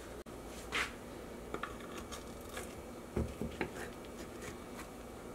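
A table knife cutting down through gooey cheesecake brownies in a glass baking dish: a few faint scrapes and light clicks of the blade, the loudest about three seconds in.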